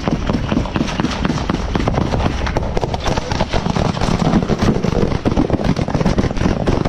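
Rapid, dense gunfire, many shots a second and overlapping, over the low rumble of a moving armoured vehicle.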